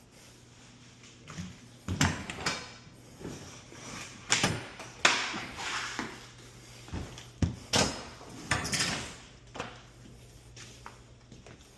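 Irregular clunks, knocks and scraping of parts and tools being handled during HVAC installation work, most of them between about two and nine seconds in, over a faint steady low hum.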